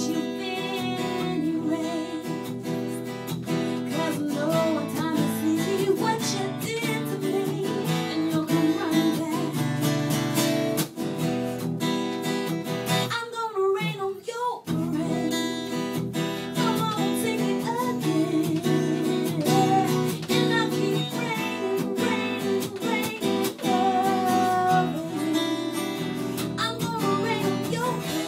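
Taylor 814ce acoustic guitar strummed in steady chords, accompanying a woman singing a pop-soul melody. The guitar drops out for about a second near the middle while the voice carries on.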